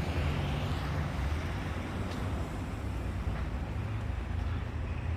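Steady low rumble of motor vehicle noise with an even background hiss.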